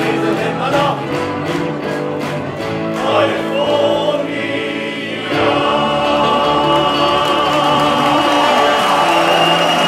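Men's choir singing with band accompaniment, with a steady beat in the first seconds; from about five seconds in the voices and band hold one long final chord.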